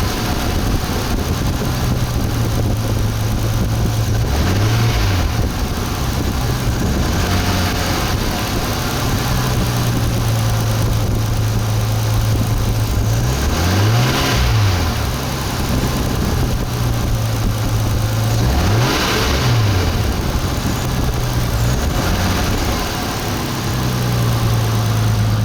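Nissan RB25DET turbocharged straight-six idling, blipped four times with short revs that rise and fall, the biggest about halfway through. This is the engine with a knock that turned out to come from its turbocharger.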